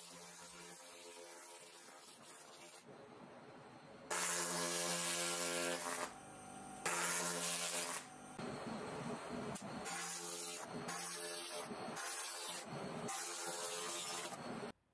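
2000-watt laser rust cleaner ablating rust from cast-iron machine parts: a harsh, buzzing hiss that comes in several bursts, loudest from about four seconds in, and cuts off suddenly near the end.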